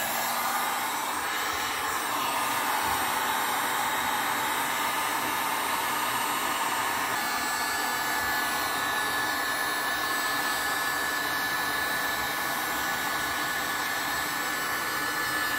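Electric heat gun running steadily on its high setting, a constant rush of blown air with a low motor hum, as it heats the end of a black plastic pipe to soften it.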